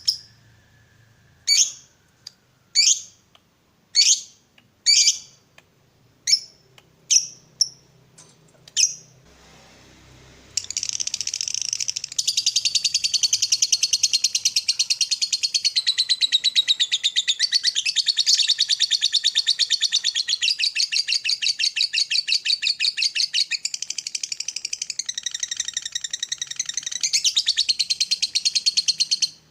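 Lovebird calling: about eight separate short chirps spaced roughly a second apart, then from about ten seconds in a long, rapid, unbroken chattering trill (the 'ngekek') that stops abruptly near the end.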